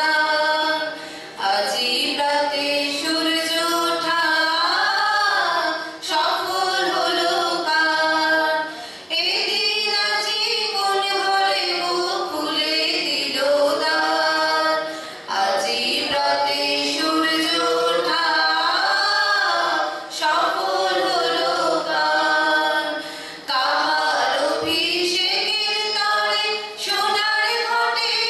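A group of voices singing a song together in chorus through microphones, in long phrases with short breaks for breath every few seconds.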